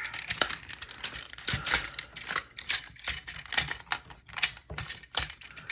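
Plastic parts of a Transformers action figure clicking and snapping as they are folded and tabbed into place by hand: many short irregular clicks.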